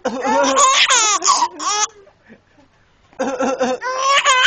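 A baby laughing in two bouts of high-pitched, rapid laughs, the second starting about three seconds in.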